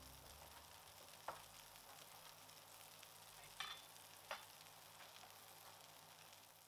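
Near silence: a faint even hiss with three soft clicks, one about a second in and two close together past the middle.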